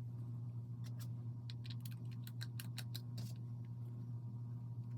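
Light, irregular clicks and ticks of a small Phillips screwdriver and small screws being worked out of a plastic trolling-motor remote's housing. The clicks are quick for the first few seconds, then thin out, over a steady low hum.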